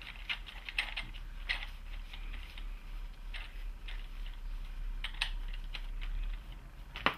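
A cloth rubbing and wiping flux residue off the plastic-housed circuit-board section of an ABS control module, making irregular short scrapes and small plastic clicks as the unit is handled, with a sharp click near the end.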